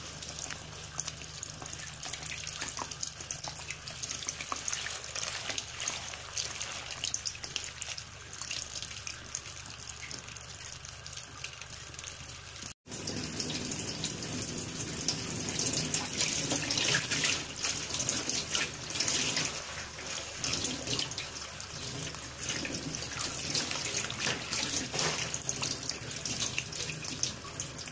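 Running tap water and hands splashing and rubbing papaya leaves in a basin of water as they are washed, with a brief break about halfway through.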